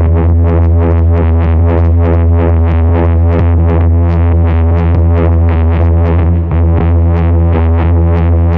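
Tubbutec Wired Heart noise synth played through a snake plant and a chain of effects pedals: a loud, steady electronic drone with a deep low hum and a stack of held tones, overlaid by a fast, even pulsing.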